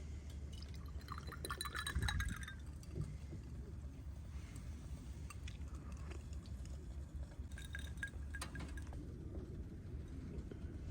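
Light clinks and short ringing taps of small hard objects, in two clusters, about a second in and again near eight seconds, over a steady low rumble of wind on the microphone.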